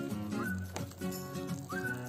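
Background instrumental music with held notes that change in steps, and a sharp click about three-quarters of a second in.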